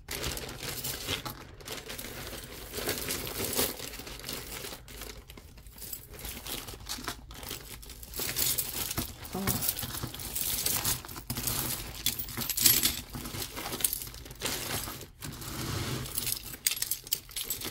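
Crinkling plastic and the clinking of tangled metal costume jewelry (bracelets and beads) being rummaged through and handled, a steady rustle full of small clicks.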